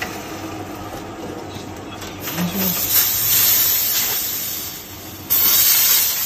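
Fire hose reel nozzle spraying water onto a concrete floor with a steady hiss, swelling about two seconds in and jumping suddenly louder about five seconds in. The newly fitted reel is being test-run now that the water supply is flowing again.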